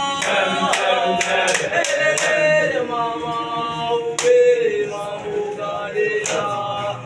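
A group of young voices singing a cappella in harmony, with sustained, gliding chords.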